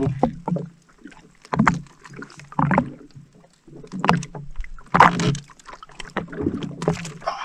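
Water lapping and slapping against the hull of a drifting jet ski, with irregular short knocks and splashes about a second apart.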